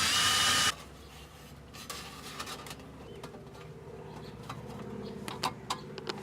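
A loud steady hiss cuts off abruptly under a second in. Irregular small sharp clicks and rubbing follow, from hand tools working wire connectors during crimping, over a faint low hum.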